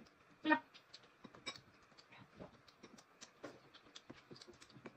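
Boiled crayfish shells being cracked and peeled by hand: a run of small, irregular clicks and crackles, with one louder short sound about half a second in.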